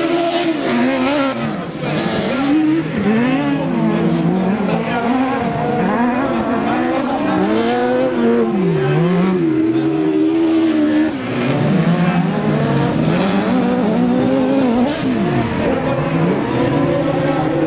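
Several autocross buggies racing on a dirt track: their engines rev hard, the notes of more than one engine overlapping and repeatedly climbing and dropping in pitch as they accelerate and back off around the circuit.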